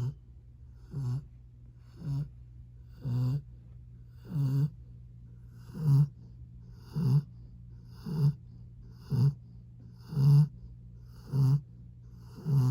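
Young Rottweiler snoring in its sleep: short, low snores about once a second, getting louder after the first few.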